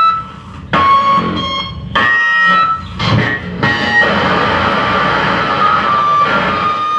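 Live harsh noise from effects pedals and electronic noise boxes: loud, dense distorted noise with high held tones through it. In the first few seconds it is chopped off and slammed back in several times, then it settles into a continuous wall of noise.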